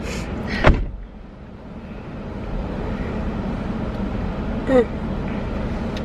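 Steady car engine hum heard inside the cabin, swelling over the first couple of seconds and then holding even. There is a sharp knock just under a second in, and a short murmur of a voice near the end.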